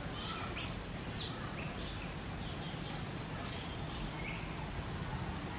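Outdoor ambience: a steady low background rumble with many short, high chirps and squeaks scattered throughout.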